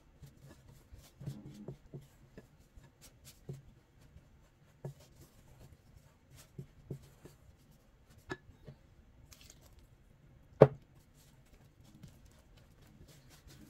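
Wooden-handled spatula stirring flour into water and yeast in a glass bowl, mixing bread dough: irregular soft scrapes and knocks against the glass, with one sharp clink about ten and a half seconds in.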